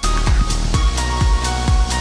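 Electronic dance music with a steady kick-drum beat, about two a second, over heavy bass.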